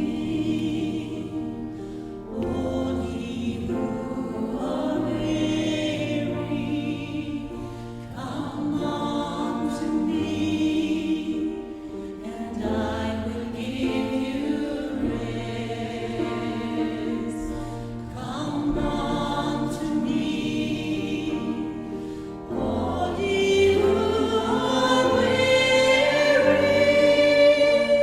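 Gospel choir singing a song in harmony over sustained low accompanying notes, swelling louder in the last few seconds.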